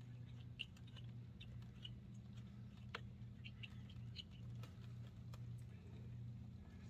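Faint scattered clicks and light scraping as a bike repair stand's clamp is tightened onto an e-bike, over a steady low hum.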